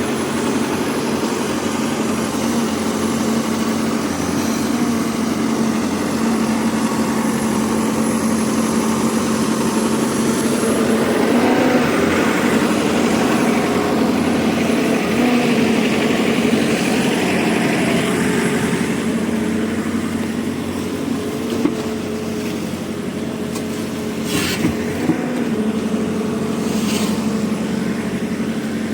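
A large engine runs steadily, working harder with a fuller sound for several seconds in the middle. A few sharp knocks come near the end.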